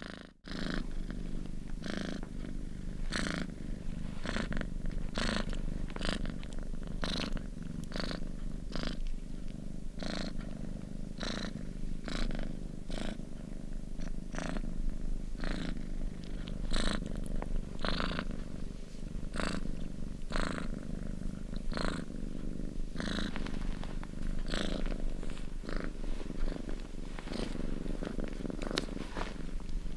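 A domestic cat purring steadily and closely, the low rumble broken by short breathy rasps roughly every two-thirds of a second.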